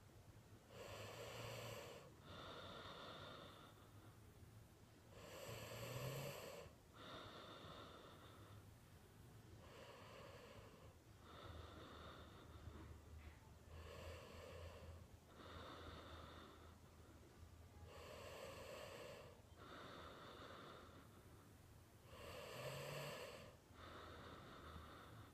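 A person snoring faintly and rhythmically, about one breath every four seconds. Each breath is a snoring inhale followed by a breathy exhale, and a few inhales are noticeably louder than the rest.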